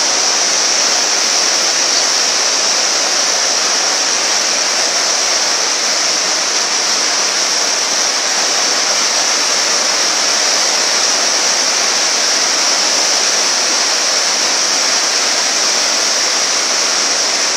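Steady rushing of a river in flood, fast muddy water churning past in a continuous wash of noise.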